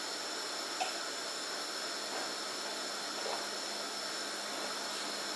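Steady background hiss with a faint, even high-pitched whine, and a few faint small sounds over it.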